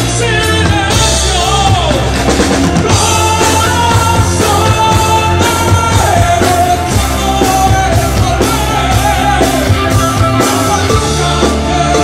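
Live rock band playing loud: electric guitar, bass guitar, drum kit and keyboards, with a singer's voice on top.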